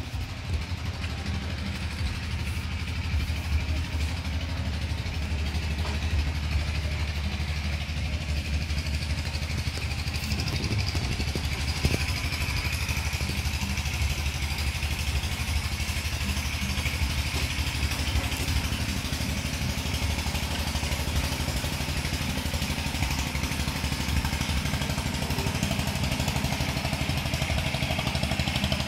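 A small engine running steadily at one speed, an unchanging low drone with an even hiss above it.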